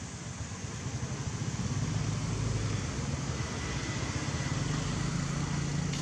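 A motor vehicle engine running steadily with a low hum, growing louder about two seconds in, over a faint background hiss.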